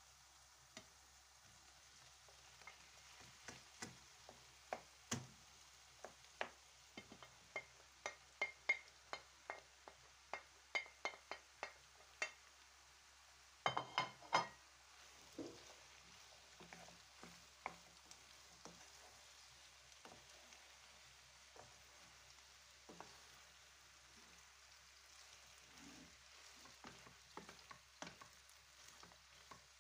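Boiled potato chunks being tipped from a plate into a pan of tomato and pepper sauce, with a run of sharp clicks and knocks of utensil on dishware, a cluster of louder knocks about fourteen seconds in, then quieter scraping and clicks as a wooden spoon stirs the potatoes through the sauce over a faint sizzle.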